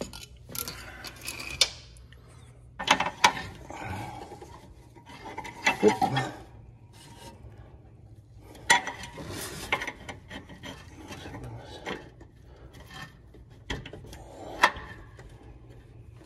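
Hand work on a new PTO engagement cable being fed around a riding lawn tractor's deck and brackets: irregular scraping and rubbing of cable and hands against metal, broken by sharp clicks and knocks.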